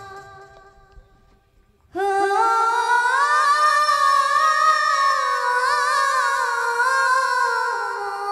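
A female voice singing an Odia kirtan line into a microphone with no drums, starting about two seconds in. It is one long held, wavering melodic phrase that sinks a little in pitch near the end.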